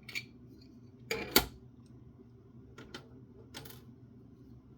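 A few sharp clicks and taps as small metal parts of a disassembled optical transceiver module are handled, the loudest a pair of clicks about a second in.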